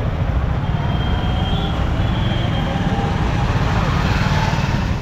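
Steady low road-and-wind rumble of riding a motorcycle in traffic, picked up by a rider-worn mic, with a faint high tone about a second in.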